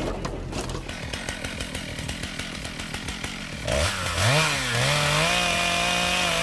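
Irregular crackling, rustling noise, then about four seconds in a chainsaw engine revs up, rising and dipping in pitch a couple of times before holding a steady high pitch.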